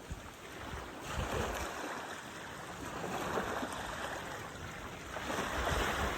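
Wind buffeting the microphone over water washing at the shoreline, a hiss that swells and eases every couple of seconds.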